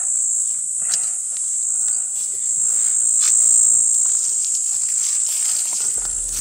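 Steady, high-pitched drone of an insect chorus in the bush, with a few faint clicks beneath it.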